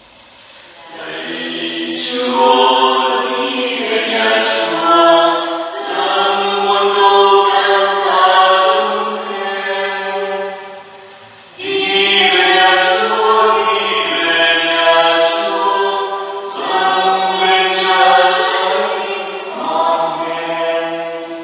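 Choir singing a slow, unaccompanied sacred song in long held notes, in phrases of about five seconds with short breaks between them.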